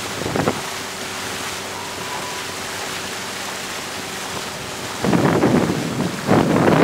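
Wind buffeting the microphone: a loud gusty rushing at the start and again from about five seconds in, with a quieter steady hiss in between. A faint steady hum runs under the quieter part.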